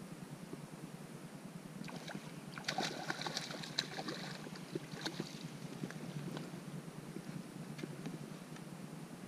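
A small bass splashing and thrashing at the water's surface as it is reeled up beside the boat, in a run of splashes from about two seconds in to about six seconds, over a steady low hum.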